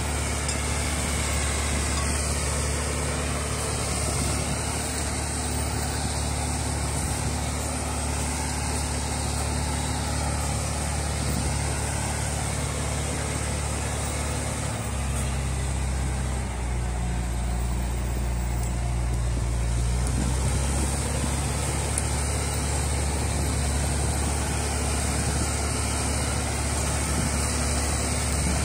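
LKT forestry skidder's diesel engine running steadily while the chained-up skidder drives slowly over a muddy forest track. The engine note shifts for about five seconds around the middle, then settles back.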